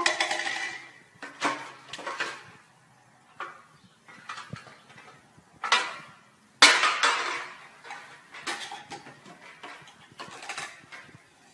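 Irregular clattering and clinking of small hard objects, a string of sharp rattles a second or two apart, the loudest a little past the middle.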